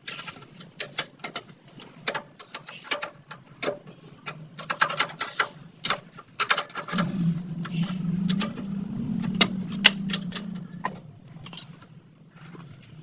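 Hand tools working on metal motorcycle shock absorber parts, with many irregular metallic clicks and clanks and ratchet-like ticking. A steady low hum joins in from about halfway through and fades out near the end.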